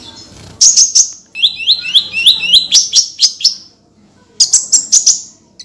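Kolibri ninja, a small sunbird, singing loud, high-pitched bursts. A few sharp notes are followed by a run of quick rising notes, about four a second. After a short pause, another burst of sharp notes comes near the end.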